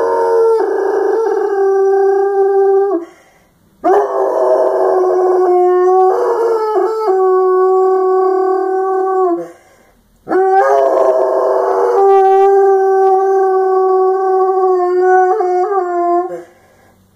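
A large dog howling in long, siren-like howls held at a steady pitch. The howls break for breath twice, about 3 and 10 seconds in, and each new howl starts with a wavering, rough onset before settling.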